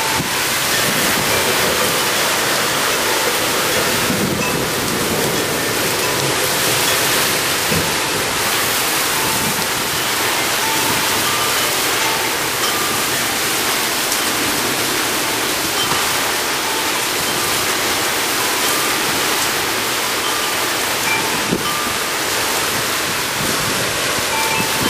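Torrential wind-driven rain pouring down in a severe thunderstorm, a steady heavy hiss of downpour. Wind chimes ring faintly now and then.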